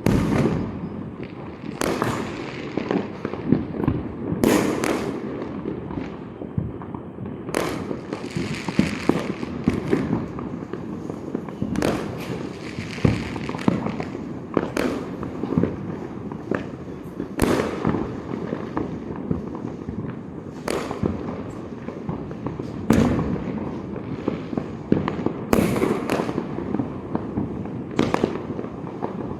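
Diwali firecrackers and fireworks going off without a break: sharp bangs every second or two at irregular intervals over a steady dense crackle of many smaller crackers.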